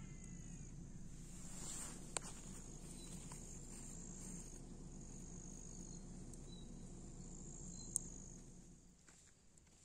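Faint outdoor dawn ambience: crickets chirping steadily, with a few short, faint bird chirps. A low steady hum fades away near the end, and there are two sharp clicks, one about two seconds in and one about eight seconds in.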